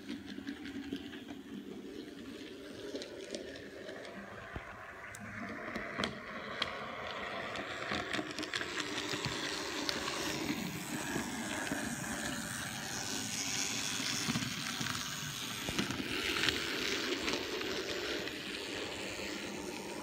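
HOn30 MiniTrains 0-4-0 model steam locomotive running on its track, its small electric motor whirring and the wheels rattling along, with occasional sharp clicks; it grows louder through the middle as the train passes close.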